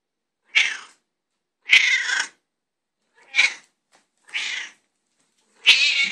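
A cat meowing five times, short calls spaced about a second apart: a hungry cat demanding its breakfast as the food is brought to it.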